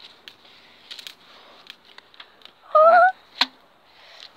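Wood fire crackling in a metal fire pit, with scattered faint pops. About three seconds in there is a short, high-pitched rising cry, followed by one sharp pop.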